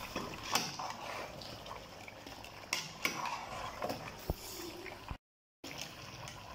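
Metal ladle clinking and scraping against a steel pot as chunks of mutton and potato are stirred and fried in oil, with a few sharp clicks over a faint, steady sizzle.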